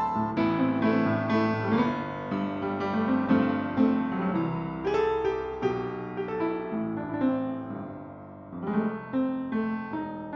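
Steinbacher piano being played: a continuous flow of struck chords and melody notes ringing out, softening briefly about eight seconds in before the playing picks up again.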